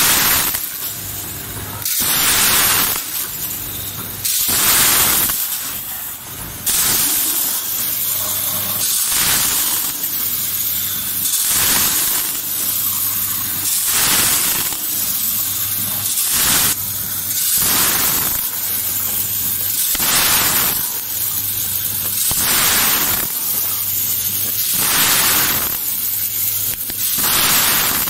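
Vertical grain packing machine running through its bagging cycle: a rushing hiss that swells about every two and a half seconds, with a low electrical hum in between.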